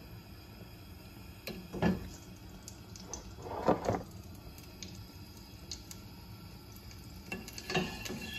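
A spoon and kitchen utensils handled at a counter while lard is scooped out: a few light knocks and clatters, the loudest about two seconds in, a cluster around four seconds, and more near the end, over low room noise.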